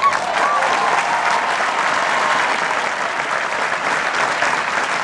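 Large convention crowd applauding steadily.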